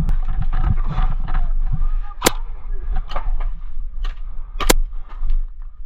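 Airsoft play: low rumbling handling and wind noise on the microphone with scattered small clicks, and two sharp cracks about two and a half seconds apart.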